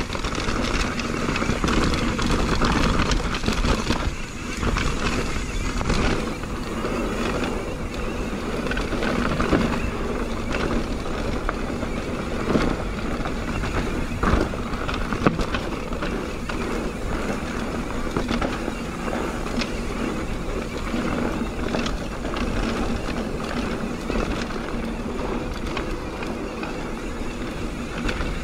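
Mountain bike riding fast down a dirt trail: tyres rolling over dirt and rocks, with the bike rattling and knocking over bumps and a steady rush of wind noise.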